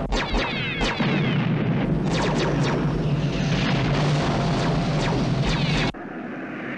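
Space-battle sound effects: sharp laser-fire shots and explosions over a dense, steady rumble as Cylon fire strikes the Galactica's hull. The din cuts off suddenly about six seconds in.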